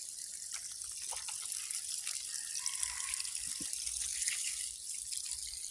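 Water spraying from a garden hose onto potted seedlings and their leaves: a steady hiss.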